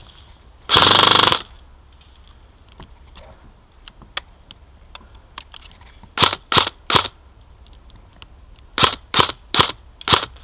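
Airsoft guns firing: a short burst of rapid fire about a second in, then three single shots in quick succession around the middle, and four more near the end.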